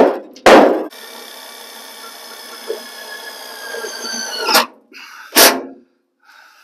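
Two blows of a 28-ounce sand-filled dead-blow hammer on a sheet-metal roll pan, then a DeWalt cordless drill running steadily for about three and a half seconds at the roll pan's edge, stopping with a knock. A single sharp knock follows about a second later.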